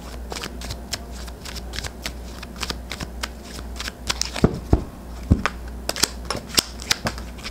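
A deck of tarot cards being shuffled by hand: a quick, uneven run of papery flicks and taps, with a few sharper snaps in the second half.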